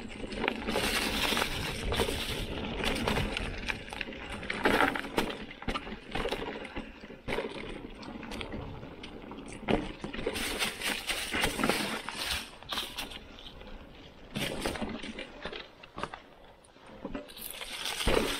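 Mountain bike riding down a trail deep in dry fallen leaves: the tyres crunch and rustle through the leaves, with frequent sharp knocks and rattles as the bike goes over rough ground.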